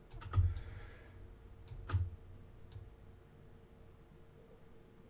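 Sharp clicks from computer controls at a desk: a quick cluster of three right at the start, then single clicks about two seconds in and just under three seconds in. The two loudest clicks each come with a dull knock.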